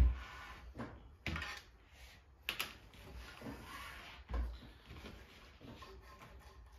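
Metal frame of an XTool D1 laser engraver set down and handled on a workbench: a sharp knock right at the start, then softer knocks, clicks and cable rustles, with a dull thump about four seconds in.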